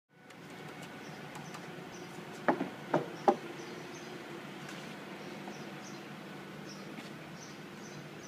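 Lumber boards knocking against each other as they are slid and handled on a trailer: three sharp knocks in quick succession, about two and a half to three and a half seconds in. Under them runs a steady hum, with faint high chirps repeating.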